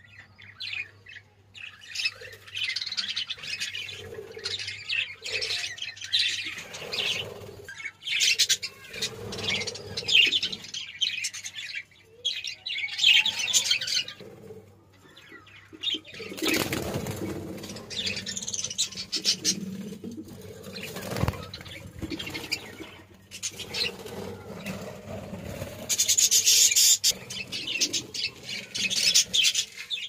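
Budgerigars chattering and chirping in short, irregular high-pitched bursts, with a louder rustling rush about sixteen seconds in.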